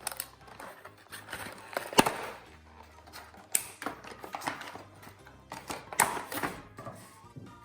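Plastic and cardboard toy packaging being wrestled open by hand, with irregular crinkling and rustling and sharp clicks and snaps, the loudest about 2, 3.5 and 6 seconds in, as a tightly packed toy Triceratops is pulled free.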